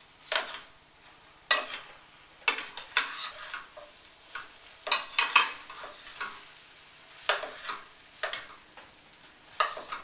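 Metal tongs clinking and scraping against a stainless-steel skillet as spaghetti is tossed and folded into sauce, in irregular strokes roughly every second.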